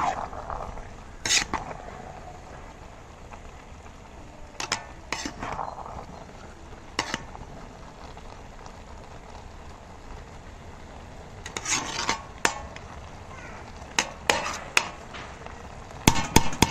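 Metal ladle stirring cooked biryani rice in a large metal pot, with scattered scrapes and knocks of the ladle against the pot. The knocks come more often in the last few seconds.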